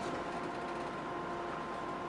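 Route bus driving, heard from inside the cabin: a steady engine and road noise with a faint steady whine of several tones.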